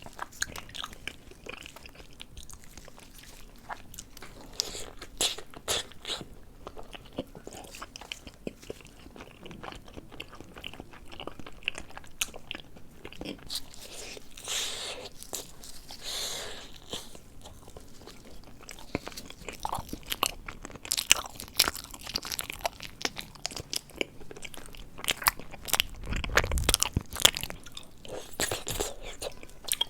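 Close-miked eating of a dessert: crisp crunching bites and chewing, many sharp crackles, coming thicker and louder over the last ten seconds.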